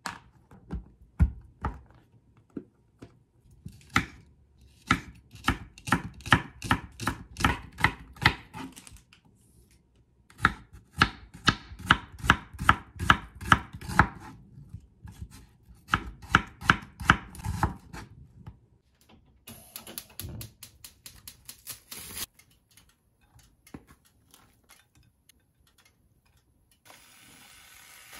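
Kitchen knife chopping onion on a wooden cutting board, in three runs of quick even strokes at about four a second. Near the end a steady hiss rises as meat starts to sizzle in a frying pan.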